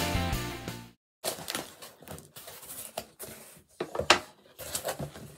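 Intro music stops about a second in. Then a small cardboard mailer box is handled on a desk: a series of light taps, scrapes and rustles, the sharpest a knock about four seconds in.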